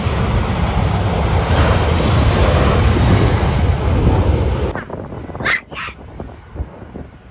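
Jet airliner's engines running loud and close, with heavy wind on the microphone; the noise cuts off abruptly about two-thirds of the way in, followed by two short, sharp calls.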